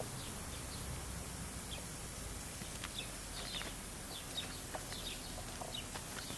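Small birds chirping in short, scattered calls over a steady outdoor background noise.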